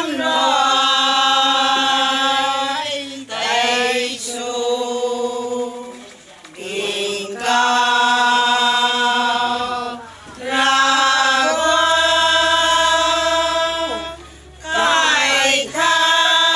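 A small group of women singing a hymn together without accompaniment, holding long notes in phrases of a few seconds with brief breaks between them.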